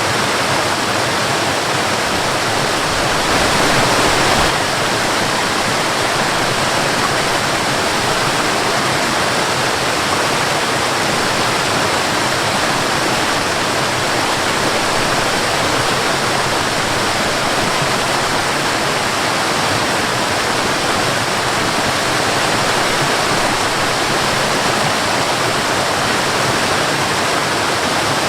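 Waterfall: water falling and splashing in a steady, dense rush, swelling slightly louder for a moment about three seconds in.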